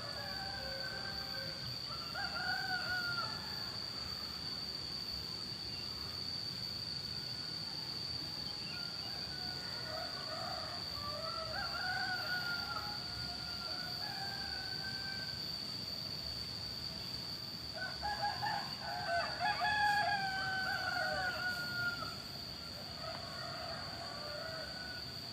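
Roosters crowing, answering one another in three bouts, the loudest and most overlapped near the end, over a steady high-pitched drone.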